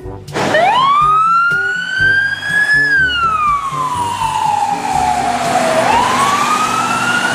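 Wailing siren for a toy ambulance: one slow rise, a long fall and a rise again, cutting off suddenly. Background music with a repeating low beat plays underneath.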